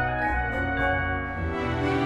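Background music: held chords that change every half second or so over a steady low bass.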